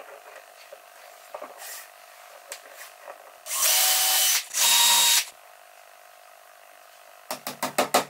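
Electric drill run in two short bursts, about a second and then half a second, with its motor whine. Near the end a rapid, even series of sharp knocks begins.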